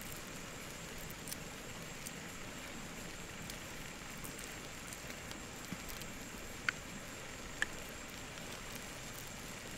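Shell of a boiled quail egg crackling in small scattered clicks as fingers pick it off, with two sharper cracks about seven seconds in, over a steady background hiss.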